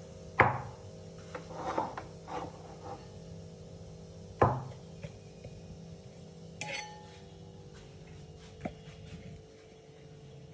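Kitchen dishes and utensils being handled: two sharp knocks about four seconds apart, some scraping between them, and a ringing clink of metal or glass a little past the middle, over a steady low hum.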